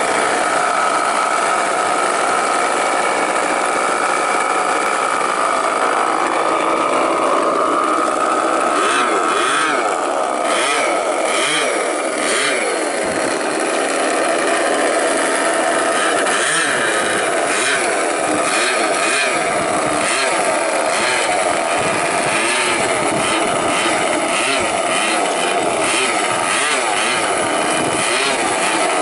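Four O.S. 65AX two-stroke glow engines on a large radio-controlled model plane running together. From about a third of the way in, their pitch wavers up and down as the throttle is worked while the model taxis.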